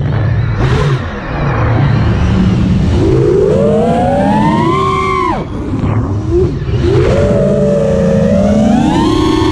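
FPV quadcopter's Brother Hobby Deadpool 2306 2450 kV brushless motors and propellers whining under throttle. The pitch climbs steadily twice, dropping off sharply in between as the throttle is cut.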